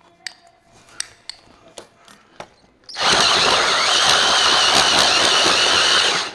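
Milwaukee Hole Dozer hole saw on a drill cutting through a truck's sheet-metal body panel. After a few light handling clicks, the saw bites in about three seconds in and runs steadily with a loud, high, wavering screech, then stops abruptly near the end.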